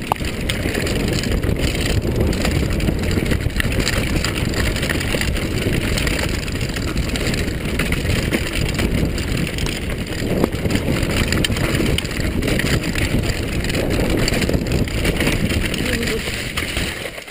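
Mountain bike running fast down a dirt trail: a steady rumble of tyres over the ground and wind buffeting the microphone, with frequent knocks and rattles from the bike over bumps.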